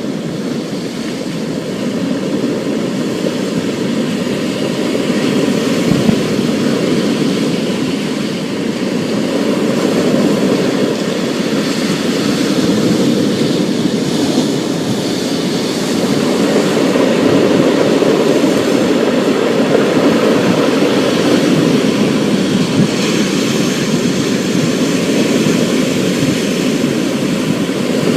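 Thunderstorm ambience: a continuous low rumbling roar with a fainter hiss above it, swelling and easing slowly.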